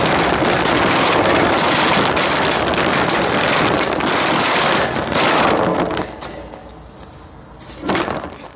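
Wire shopping cart rolling over asphalt, its metal basket and wheels rattling loudly and continuously; the rattle drops away about six seconds in, with one brief louder noise near the end.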